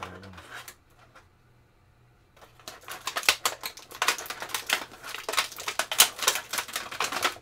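Clear plastic packaging tray crackling and crinkling as an action figure is worked out of it. After a near-quiet pause, a dense run of sharp crackles starts about two and a half seconds in.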